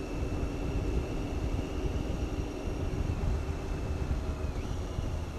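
Triumph Tiger 800 inline-triple engine running steadily while riding, on its standard exhaust, with wind rumble heard through a microphone inside the rider's helmet with the visor up.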